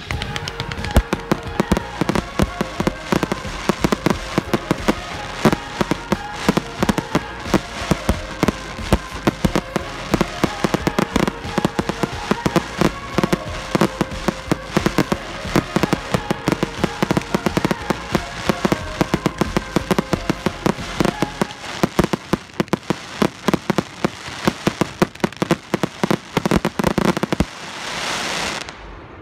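Fireworks display: dense, rapid crackling and popping from bursting shells, with many sharper bangs throughout. A rushing hiss swells near the end, then the sound cuts off suddenly.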